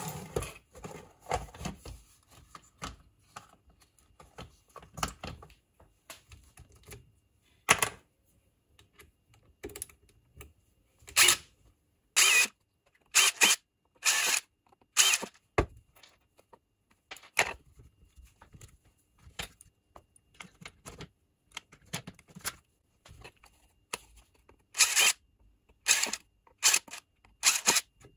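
Cordless impact driver with a drill bit boring holes through an orange plastic bucket lid, run in short bursts of under a second, about ten in all in two clusters. Between them, light knocks and clatter of parts handled on a wooden workbench.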